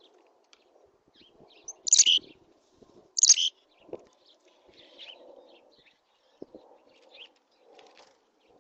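A bird giving two loud, high, harsh calls about a second apart, with faint scattered chips around them.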